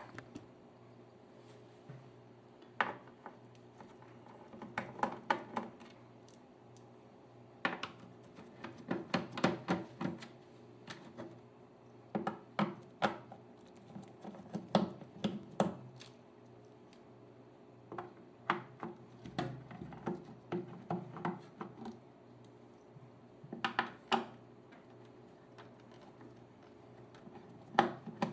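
Small screws being worked out of a Technics SL-1600MK2 turntable with a screwdriver: scattered small metallic clicks and scrapes in short clusters, with pauses between.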